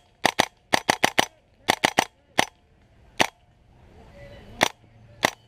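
Airsoft guns firing, each shot a sharp snap: quick clusters of two to four shots for the first two and a half seconds, then single shots spaced about a second apart.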